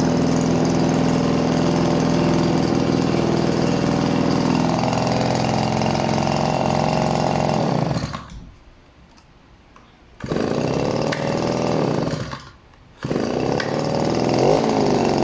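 Nippon Tools EB-260 hand blower's small two-stroke engine running steadily, then dropping to a low level for about two seconds some eight seconds in. It comes back revving up and down, dips out again briefly, and returns revving.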